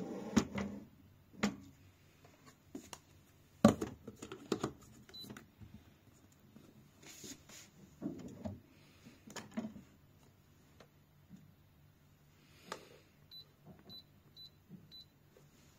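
Knocks and clatters of a blender's lid being handled and fitted onto its stainless-steel jug, then four short electronic beeps from the touch buttons on its control panel near the end.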